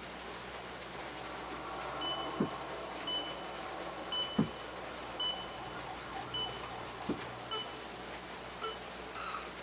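Heart monitor sound effect: short, high beeps about once a second, starting about two seconds in. Three dull low thumps fall among the beeps.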